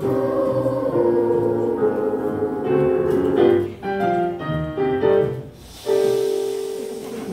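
Children's choir singing with piano and upright bass accompaniment in the closing bars of a song: held chords, then a run of short clipped notes, a brief break, and one final held note that fades out.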